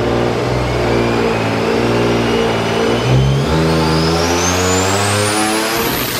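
Turbocharged Nissan 370Z's 3.7-litre V6 doing a wide-open-throttle pull on a chassis dyno. The revs climb steadily with a rising turbo whine that climbs faster in the second half, and there is a brief stumble about three seconds in. The engine has been breaking up under boost, which the crew blames on the spark plugs and coil packs.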